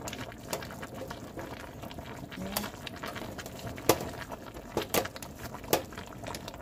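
Pot of beef stew broth bubbling, a steady low simmer with scattered sharp pops of bursting bubbles, the loudest about four seconds in.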